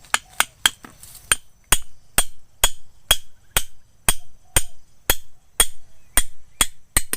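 A run of about seventeen hard, sharp blows, a few quick ones at first and then a steady beat of about two a second, like something being struck repeatedly with a tool.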